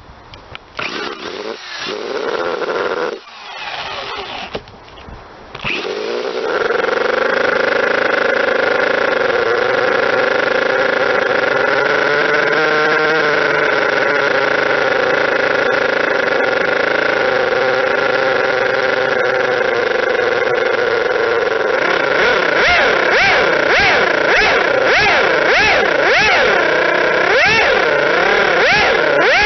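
Model twin-rotor Wankel nitro engine starting: a few seconds of uneven, stop-start sound, then it catches about six seconds in and runs steadily at high revs. From about two-thirds of the way through, its revs waver rapidly up and down. This is the retest run after the stator gear mesh was reworked to cure a gear noise.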